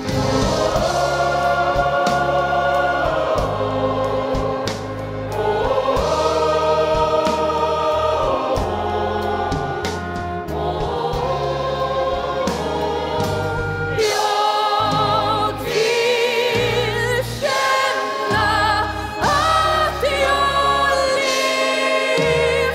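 Choir singing with instrumental backing, in long held chords; about two-thirds of the way through, the phrases turn shorter, broken by brief gaps.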